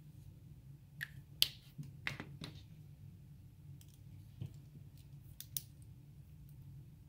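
A handful of short, sharp clicks and taps from a marker being handled and set down on paper, the loudest about a second and a half in, over a faint low steady hum.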